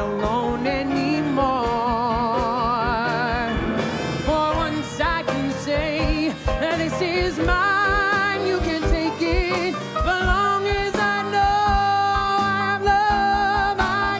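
Band music with a voice singing long, wavering notes with heavy vibrato over a steady beat.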